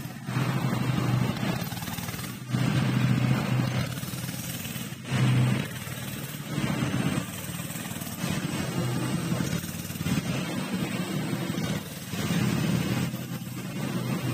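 Kids' go-kart's 90cc petrol engine running, its note surging up and dropping back again and again at uneven intervals as the throttle is pressed and let off.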